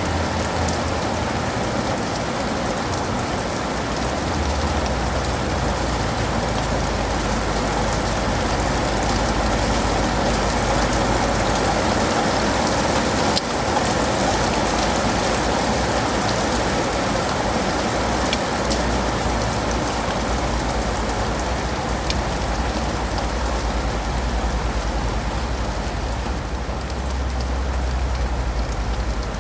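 Steady rain falling on leaves and pavement, a dense even hiss with scattered individual drop ticks, over a constant low rumble.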